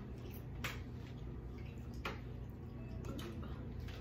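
Eating sounds: a few scattered soft, wet clicks and squishes of food being pulled apart by hand and chewed, over a low steady hum.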